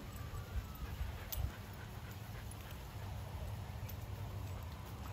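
Several dogs play-wrestling on grass: faint scuffling and small dog whines, with scattered light knocks.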